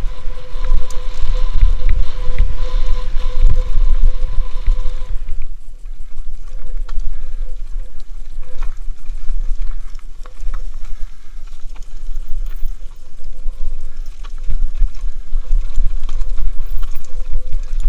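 Wind buffeting the microphone of a helmet-mounted camera on a fast mountain-bike descent, with rattles and knocks from the bike over roots and rocks. The rumble eases about five seconds in and builds again near the end.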